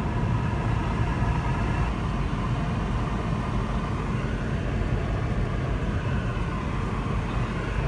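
Steady cabin noise inside a Boeing 717-200 airliner on descent: a constant low rush of jet engines and airflow, even throughout.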